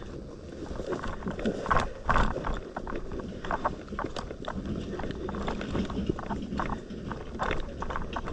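Footsteps walking along a path, irregular steps about two a second.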